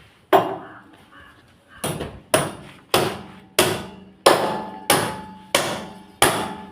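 Hammer blows during window-grill fixing: one strike, a pause, then eight steady, evenly spaced strikes about every two thirds of a second, each leaving a faint ring.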